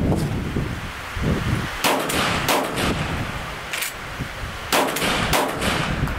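Sjögren 12-gauge inertia-action semi-automatic shotgun firing two shots about three seconds apart, each with a second sharp crack close behind it. Wind noise on the microphone in between.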